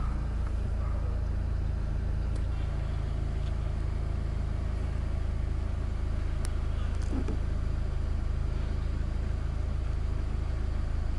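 Car engine idling, a steady low hum with no change in pitch.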